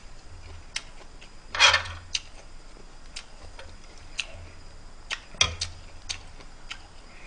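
Metal spoon clicking and scraping against a griddle pan and a ceramic bowl as cooked bulgogi is scooped up: scattered light ticks with a few short scrapes.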